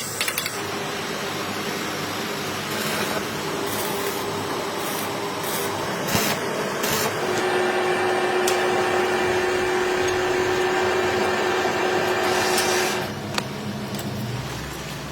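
A machine running with a steady noise and a whine, with several sharp clicks in the first half; the whine holds one pitch for several seconds, then the sound drops off about two seconds before the end.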